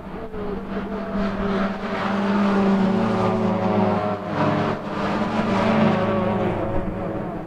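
1.6-litre V1600-class race cars' engines running hard through a corner, their pitch climbing, dropping once about four seconds in, then climbing again, loudest in the middle as the cars pass.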